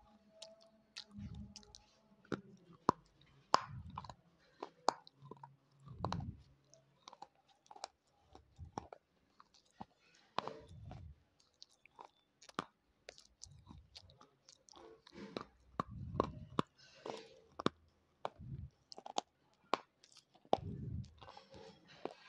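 Slate pencil being chewed close to a clip-on microphone: many sharp crunches and clicks as it breaks between the teeth, with dull low thumps of the chewing every couple of seconds.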